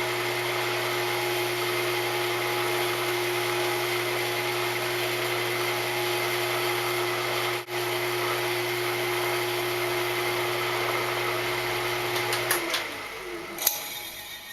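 Wood lathe running at high speed with a steady hum and whine, spinning a freshly oiled hardwood spice grinder to work mineral oil into the wood. It is switched off near the end and winds down.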